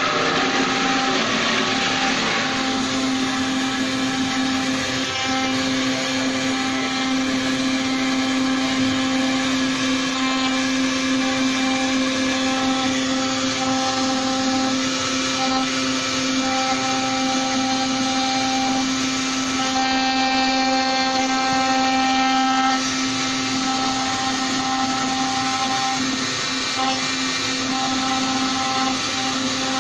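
CNC wood router at work: the spindle motor runs with a steady hum and the bit cuts an ornate 3D relief into a wooden panel, with a constant noisy hiss from the cutting.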